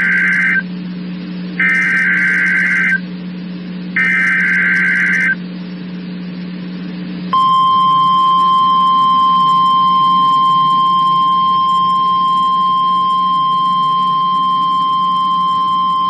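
NOAA Weather Radio weekly test tones: the end of one specific area message encoding (SAME) data burst, then two more screeching bursts of about a second each, with a low hum under them. About seven seconds in, the steady 1050 Hz warning alarm tone starts and holds for about nine seconds.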